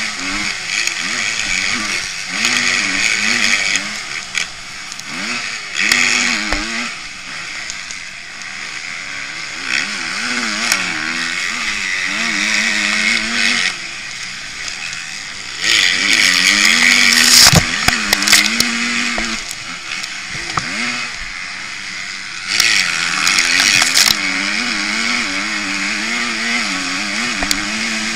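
Motocross bike's engine heard from an onboard camera on the bike, revving up and dropping back over and over as the rider accelerates, shifts and rolls off around the track. Loud rushing noise swells twice in the second half, with a sharp knock in the middle of the first swell.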